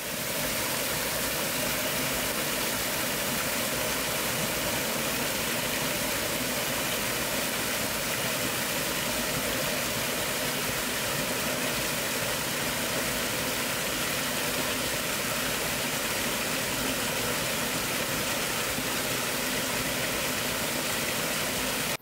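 Steady rush of flowing water in a mountain stream, an even, unbroken noise with no rhythm.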